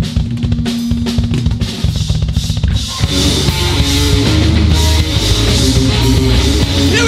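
Live rock band starting a song, recorded straight off the mixing desk: the drum kit plays alone, kick and snare, then about three seconds in the bass and electric guitar come in and the full band plays on.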